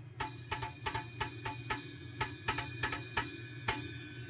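Homemade Drum Master drum-trigger board playing a drum sample each time its pad is hit: about fourteen sharp, ringing drum hits, roughly three to four a second, louder and softer with how hard the pad is struck, since the board is velocity sensitive.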